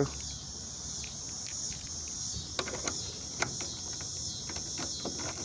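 Steady high-pitched chirring of insects, with a few faint clicks and knocks around the middle.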